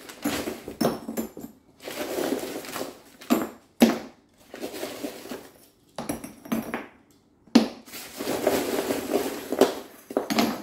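Ceramic filter media tubes being dropped and scattered into a Bakki shower tray, clinking and clattering against each other in irregular bursts, with a few sharper knocks.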